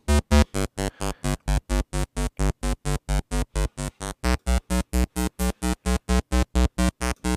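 Synth bass from a mono square-wave patch in the Xpand!2 plug-in, playing a rapid string of short, evenly spaced staccato notes.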